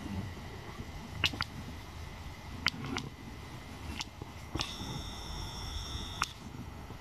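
Handheld video camera noise: scattered sharp clicks and taps of handling, then a steady high whine from the zoom motor for about a second and a half, starting and stopping with a click, over a low rumble.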